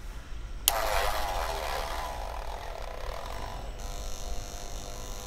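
Parkside PSTK 800 C3 jigsaw switched on with a click about a second in, its 800 W motor then running at the lowest stroke-rate setting with a steady hum. At this setting it barely manages to run.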